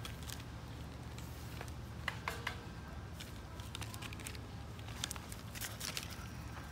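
Scattered light clicks and crackles of plastic as a German shorthaired pointer puppy chews and tears at a green plastic toy, over a steady low rumble.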